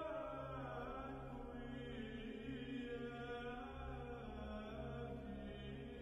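Chant-like vocal music: slow, held sung notes over a steady low drone.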